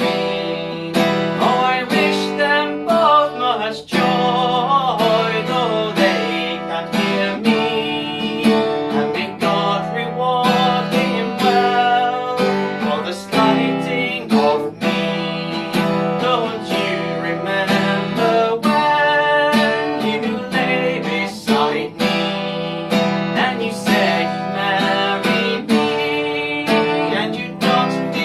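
Acoustic guitar played in a steady run of strummed and picked chords, accompanying a folk song.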